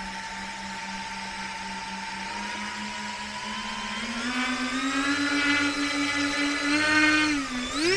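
Twin electric motors and propellers of an E-flite Twin Timber RC plane running at low throttle with a steady whine. The pitch steps up about four seconds in, dips briefly near the end, then rises sharply as the throttle is opened for a takeoff from grass.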